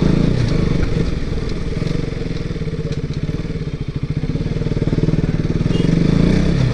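KTM sport bike's single-cylinder engine running at low speed as the motorcycle rolls slowly along. It dips a little in the middle and picks up again near the end.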